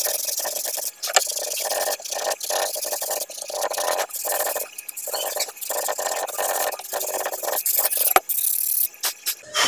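Folded 240-grit sandpaper rubbed back and forth along a carved groove in a wooden strip, making a dry scraping hiss in short repeated strokes, with a couple of sharp clicks.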